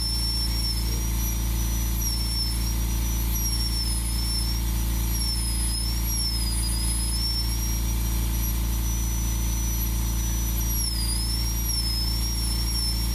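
Rotary carving tool with a small pointed bit running at high speed, burnishing carved fish scales in wood. It gives a steady high-pitched whine over a low hum, and the pitch dips briefly and recovers several times as the bit bears into the wood.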